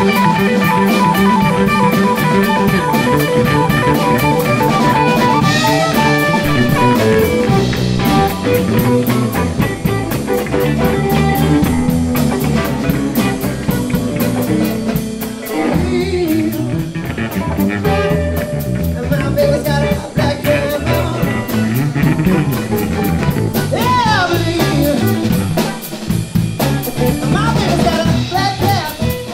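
Live electric blues band playing: electric guitars over electric bass and a drum kit, with sustained guitar notes and a steady beat.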